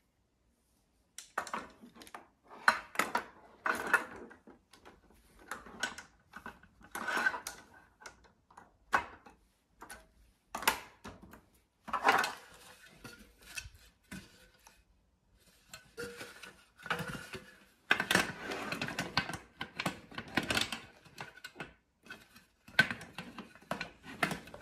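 Folding camping table being set up by hand: its metal frame poles clacking and rattling in irregular bursts as the frame is unfolded, and its slatted roll-up tabletop clattering as it is handled.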